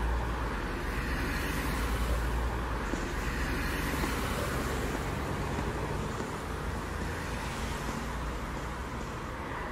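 Road traffic noise: a steady low rumble of passing cars.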